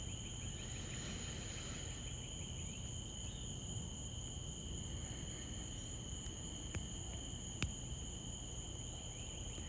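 Evening insect chorus of crickets, a steady high-pitched trilling at two pitches, over a low background rumble, with two faint clicks about seven and a half seconds in.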